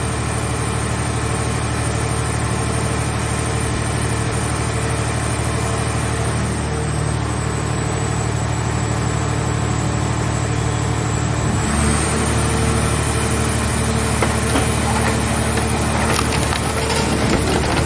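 Scrap-car baler's engine and hydraulic pump running steadily. About twelve seconds in the drone changes and irregular crackling and crunching of metal begins, as a car body is crushed in the press.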